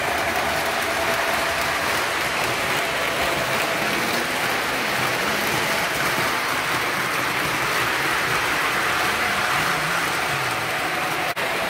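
O scale model trains running on the layout track: a steady, dense rolling clatter of wheels on rail with a faint steady hum, cutting out for an instant near the end.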